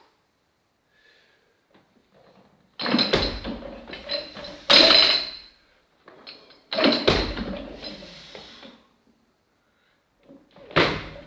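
Loaded barbell with bumper plates clanking and rattling as it is pulled from the floor and cleaned to the shoulders: loud sudden clanks with a ringing tail about three, five and seven seconds in, then another sharp clang near the end.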